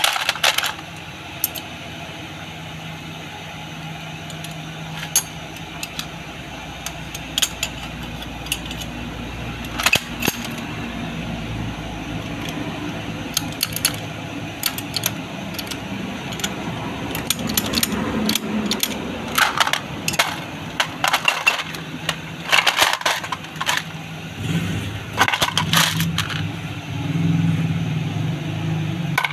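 Metal parts of a dismantled rotary diesel injection pump clinking and tapping against each other and the aluminium basin as they are picked up and handled: irregular sharp clicks in clusters. A steady low hum runs behind them.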